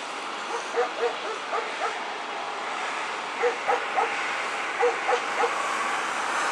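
A dog barking, about a dozen short high barks in two runs, the first starting about half a second in and the second around three and a half seconds in. Underneath is the steady jet noise of a Boeing 737 on approach, growing a little louder toward the end.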